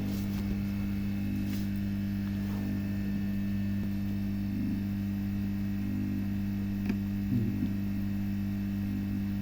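Steady low electrical mains hum, with a few faint small ticks about a second and a half in and around seven seconds.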